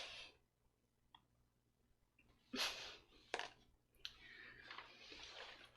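Faint handling noises: a short scrape, a sharp click about three and a half seconds in, then light rustling.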